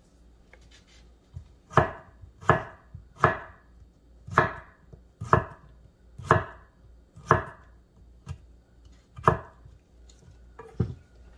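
Chef's knife slicing chayote (chocho) thin on a wooden cutting board: about nine sharp knocks of the blade hitting the board, roughly one a second, starting a couple of seconds in.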